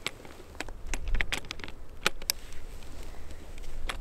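Irregular clicks and taps of a spotting scope being handled and adjusted on its tripod, bunched in the first half, over a low rumble of wind on the microphone.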